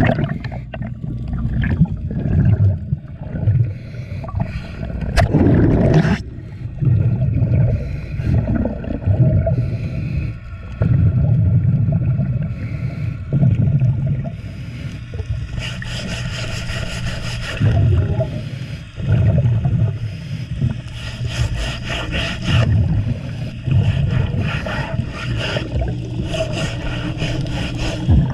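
Underwater sound: a stiff bristle brush scrubbing marine growth off a boat's hull in quick scratchy strokes, from about halfway through, over low bubbling and rumbling of water around the microphone.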